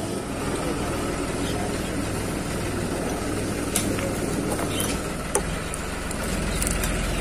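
A motorcycle's fuel tank cap being shut and locked with its key: a few sharp metallic clicks, over a steady low engine hum that grows a little louder near the end.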